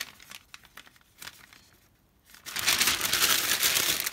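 A sheet of newspaper rustles lightly as it is handled, then is crumpled up by hand from about two and a half seconds in, a loud, dense crackling.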